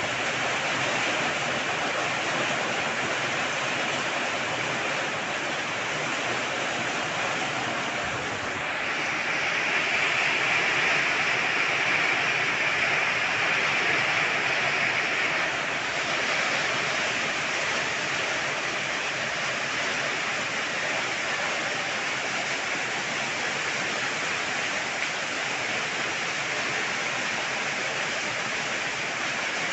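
Heavy rain falling steadily, a dense even hiss of water; it swells a little louder and brighter for several seconds about a third of the way in, then settles back.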